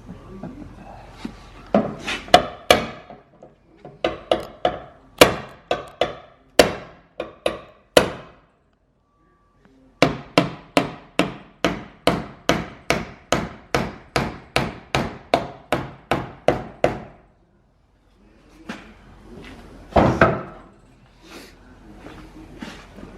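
Hammer blows on the crash-damaged rear body panel of a Nissan 240SX, knocking the dent back out. Irregular groups of strikes come first, then a steady run of about three blows a second for some seven seconds, a short pause, and more blows near the end.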